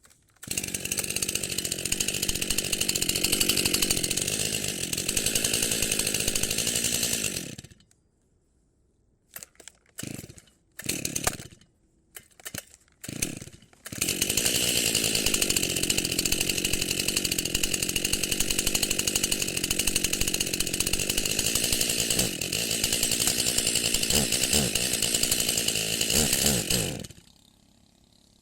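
Chainsaw running at a steady speed with its pitch wavering slightly, cutting off after about seven seconds. A few short bursts follow, then it runs steadily again for about thirteen seconds, with several brief rises and falls in pitch, before stopping shortly before the end.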